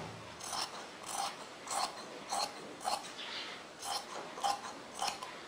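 Scissors cutting through cloth, a steady series of snips about two a second.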